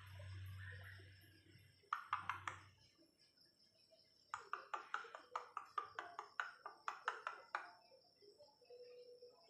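Hybrid jalak (starling) calling with sharp, clipped notes: a short group of four about two seconds in, then a longer run of about a dozen at roughly four a second.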